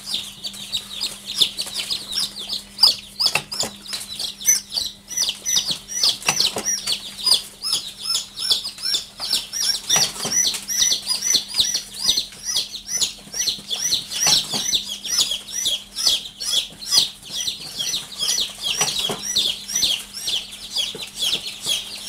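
A box of day-old chicks peeping without pause, a dense stream of short high chirps, several a second, with a faint steady low hum underneath.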